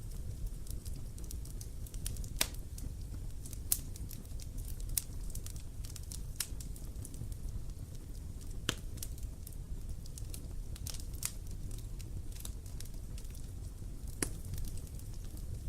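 Wood bonfire crackling: sharp pops and snaps at irregular intervals over a steady low rumble.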